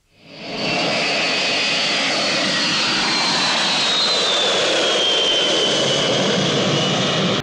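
Jet aircraft engines running, rising in about the first second and then holding steady, with a high turbine whine that slowly falls in pitch.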